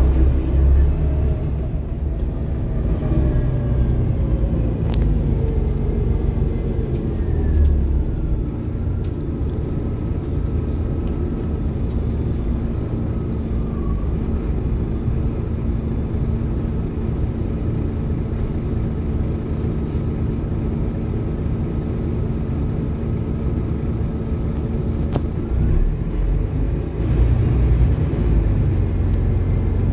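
Volvo B7TL double-decker bus under way, its 7.3-litre D7C diesel and ZF six-speed Ecomat automatic gearbox giving a steady low rumble. A whine glides down over the first few seconds, and a higher whine holds through the middle.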